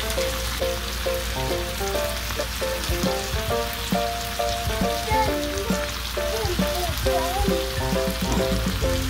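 Chicken thighs and drumsticks sizzling steadily as they fry in a cast-iron skillet, under background music of short, quickly repeating notes.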